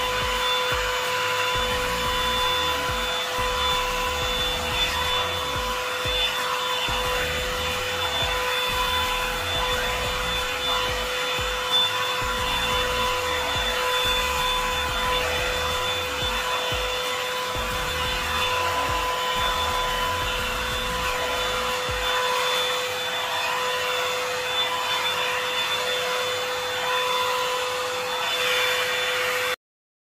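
Revlon blow dryer brush running, a steady motor whine over a rush of air. It cuts off suddenly near the end.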